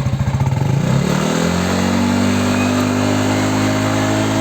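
Yamaha NMAX V2 scooter's single-cylinder four-stroke engine through an aftermarket TSMP exhaust pipe, idling at first. About a second in it is revved up and then held at steady higher revs.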